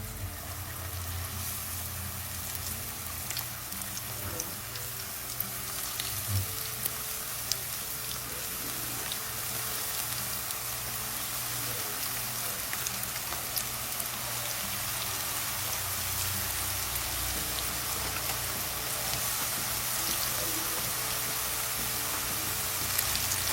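Floured, paper-thin squash slices deep-frying in hot peanut oil in a cast iron Dutch oven: a steady sizzling hiss with fine crackles, growing slightly louder over the stretch.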